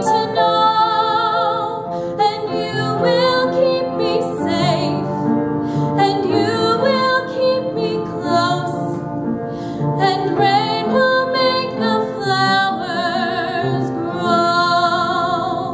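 A woman singing a slow musical-theatre ballad solo, long held notes with wide vibrato, over a soft instrumental accompaniment.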